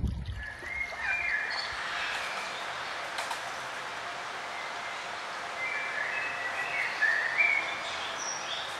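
Birds chirping and singing in short, scattered phrases over a steady outdoor hiss. A low rumble fades out in the first second.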